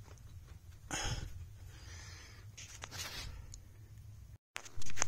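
Scattered scrapes and knocks of a C7 Corvette rear half shaft being pulled out of the transaxle, over a low steady hum, with a louder noise at the very end.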